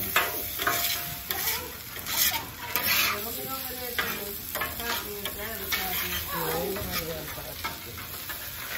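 Food sizzling on a hot hibachi griddle while a spatula is worked through it, with repeated short scrapes and clacks against the cooking surface.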